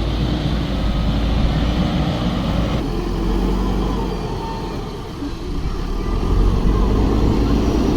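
Diesel engine of a JCB 3DX Super backhoe loader running steadily under work, easing off about five seconds in and picking up again a second later.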